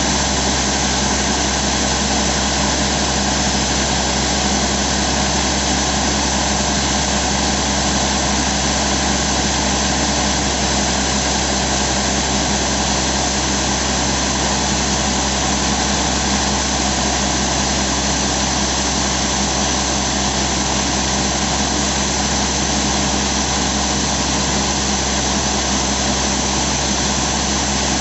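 Crawler-mounted quarry drill rig's engine running loud and steady while the drill mast is being swung into position, with no drilling strokes heard.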